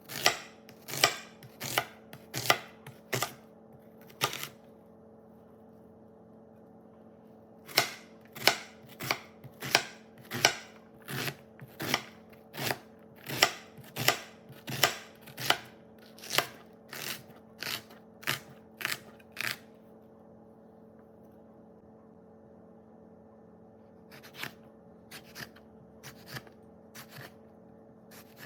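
Knife chopping vegetables on a cutting board: sharp chops at about two a second in three runs with pauses between, the last run softer. A faint steady hum lies underneath.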